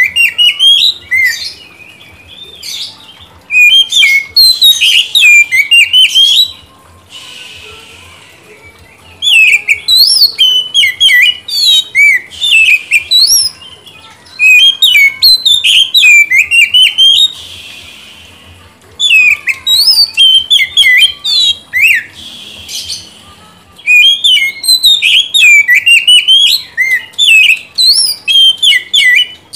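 Male oriental magpie-robin singing loudly in bursts of varied, quick whistles and gliding notes. There are about six phrases a few seconds long, with short pauses between them.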